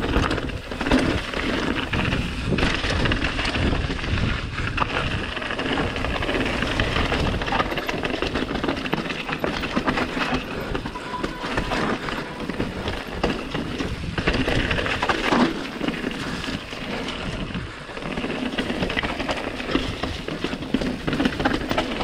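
Mountain bike running fast down a rough trail: tyres rumbling over rock and gravel, with a constant rattle and many knocks from the bike over the bumps.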